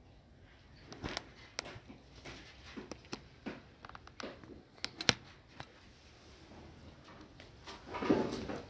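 Scattered light clicks and knocks in a quiet room, with a brief louder burst of noise near the end.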